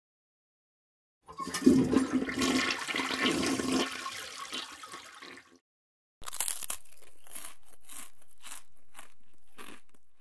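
Toilet flushing: a loud rush of water that tails off and stops after about four seconds. It is followed by a run of short, scratchy hissing pulses at an even level that fade out near the end.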